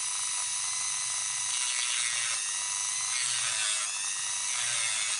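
Dremel rotary tool with a sanding drum running at speed, grinding relief into a plastic gearbox case: a steady high whine whose pitch dips slightly a few times as the drum bites into the plastic.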